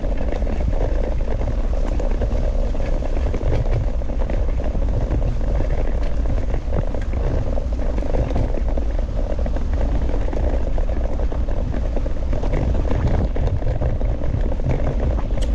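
Steady rumble of a dog scooter's wheels rolling fast over a grassy dirt track, with wind on the microphone and scattered light rattles.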